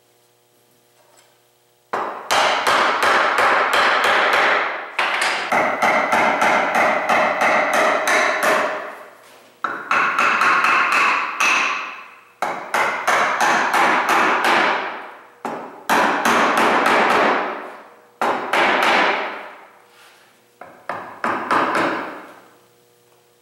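A hammer tapping a glued wooden end frame down onto the glider base, seating the joints. The blows come in runs of many quick strikes with short pauses between them, starting about two seconds in.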